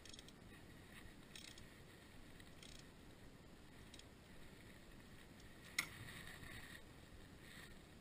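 Near silence, with a few faint clicks and rustles of hands handling parts at a car battery, and one sharp click a little before six seconds in.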